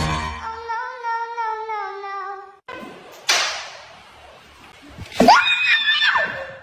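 A long, wavering, high-pitched cat meow. Then a sharp thump, and near the end a cry that rises steeply and falls away.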